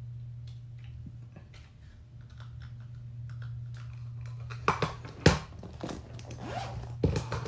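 Small toiletry items being handled and packed into a clear plastic zip-top bag: light clicks and taps with plastic crinkling, and two sharper knocks about five seconds in, over a steady low hum.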